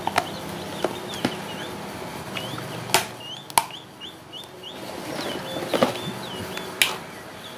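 Scattered plastic clicks and knocks as the desk fan's plastic rear motor cover is handled and pressed onto the motor housing. A bird chirps in the background, in a quick run of short calls around the middle.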